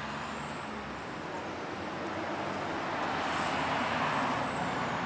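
CSX diesel locomotive approaching slowly, its engine running with a steady rumble that grows gradually louder. A faint, thin high-pitched squeal rises and fades midway.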